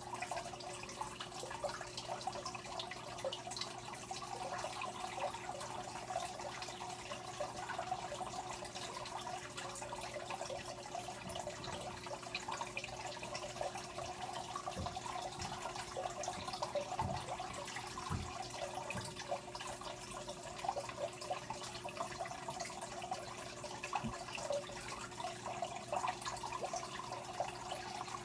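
Water trickling and bubbling steadily in a home aquarium, the sound of its water circulation, over a constant low hum.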